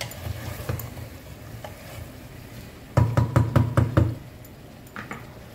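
Wooden spatula knocking against the inside of a metal pressure cooker while stirring vegetables and soaked dal: a few light taps, then a quick run of about six loud knocks about three seconds in.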